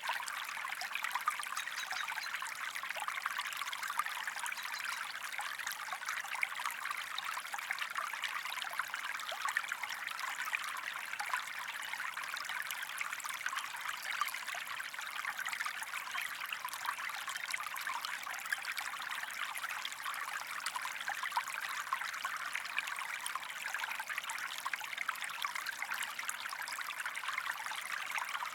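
Steady running water from a water-flow background track: a stream trickling evenly.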